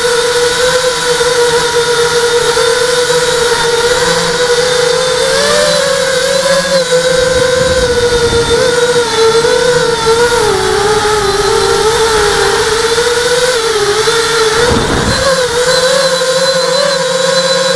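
Hexacopter's six brushless motors and propellers whining steadily, close to the onboard camera, the pitch wavering slightly as the throttle changes. A short low rumble about fifteen seconds in.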